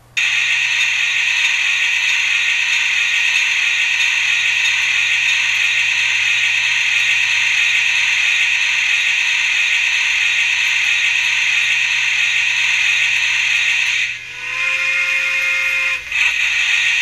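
Digitrax SFX004 Soundbug sound module playing its factory steam-locomotive sounds through a small speaker in an HO-scale Kato SD40-2 diesel. The sound set has not yet been reprogrammed for a diesel. A steady hiss starts suddenly at power-on and holds for about fourteen seconds, then breaks for a two-note steam whistle of about two seconds before the hiss returns.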